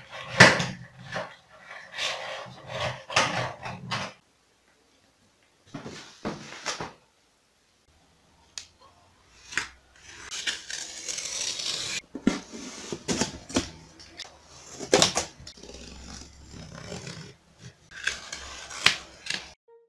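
Sharp clacks and knocks of a homemade cardboard table-football game: metal rods and clothes-peg players striking a ball. Then a utility knife scoring corrugated cardboard, in stretches of scratchy hiss with occasional knocks, with gaps of quiet between.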